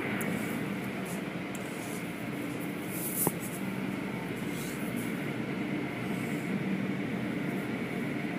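Steady mechanical hum and hiss of automatic car wash tunnel machinery, with a single sharp click a little over three seconds in.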